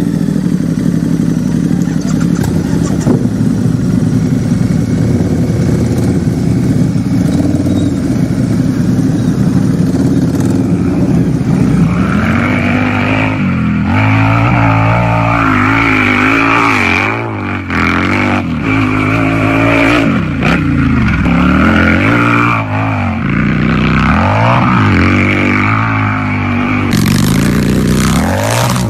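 Harley-Davidson motorcycle's V-twin engine idling steadily, then, about twelve seconds in, being revved repeatedly, its pitch rising and falling back again and again.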